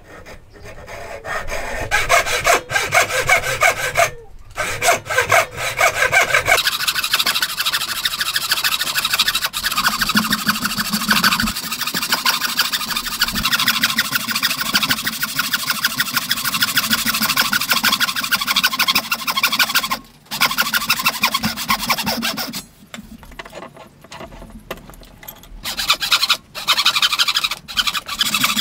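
Hand-sawing into a timber beam with a wooden frame saw: fast back-and-forth strokes of the blade through the wood, stopping briefly a few times.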